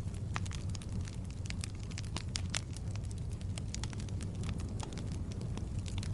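Wood logs burning in a fireplace, with frequent irregular sharp crackles and pops over a steady low rumble of the flames.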